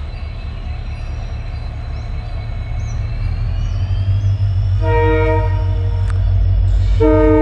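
An approaching locomotive rumbling louder as it nears, sounding its horn twice: a short blast about five seconds in, then a longer one starting near the end.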